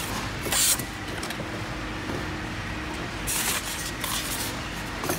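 Polystyrene foam packing pieces and a cardboard box being handled as a car stereo head unit is unpacked: low rustling with a few short, sharp scraping rustles as the foam is pulled free. A faint steady hum sits underneath.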